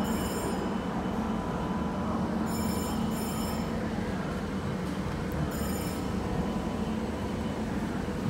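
Kawasaki C151B electric train moving past at a crawl of about 10 km/h, with a steady hum throughout. Short high-pitched squeals come twice about two and a half seconds in and once more near the six-second mark.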